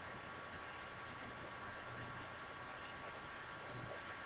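Faint steady hiss with a thin, steady high tone: room tone and microphone noise.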